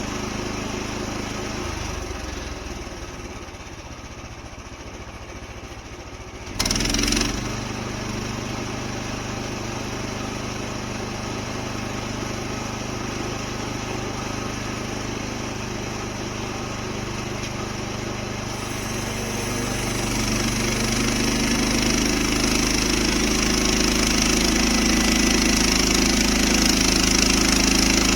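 Frontier OS31 portable bandsaw mill running on its small gasoline engine while milling a large red oak log. The engine runs steadily, with a sudden loud burst about a third of the way in. Near the end it grows louder and fuller.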